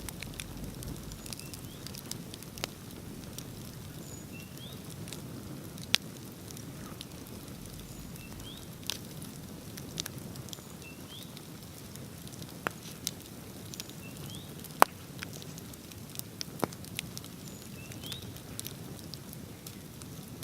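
Wood bonfire burning with a steady low rush of flame and irregular sharp crackles and pops, the loudest about six seconds in and near the three-quarter mark. A few faint, short, high rising chirps sound now and then.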